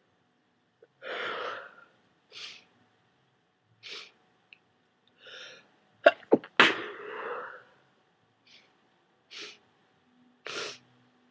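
A person with a cold sneezing wetly: a string of short, separate outbursts, with the loudest, longest sneeze about six seconds in.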